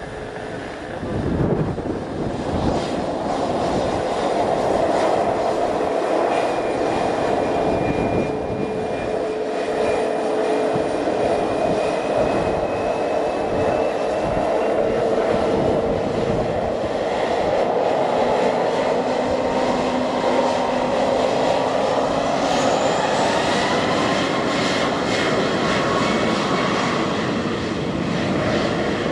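Airliner engines running at takeoff power: a loud, steady rush that swells up about a second and a half in, with high whines that slowly rise in pitch.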